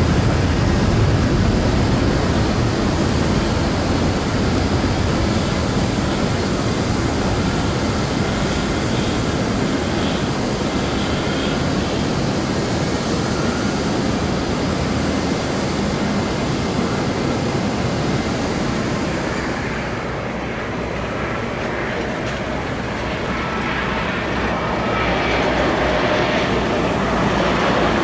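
Jet airliner engines running, a steady loud rumble and rush of noise; it eases off somewhat past the middle and swells again near the end as an ANA twin-jet airliner rolls along the runway.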